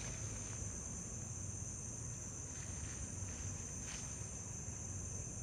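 Steady high-pitched chorus of night insects chirring without a break, over a low background rumble, with a faint click about four seconds in.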